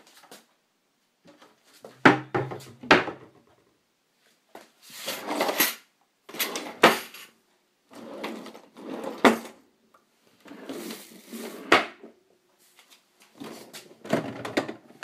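Kitchen drawers and cupboards opened and rummaged through: a few sharp knocks and clicks about two seconds in, then repeated bursts of rustling and clatter, each about a second long.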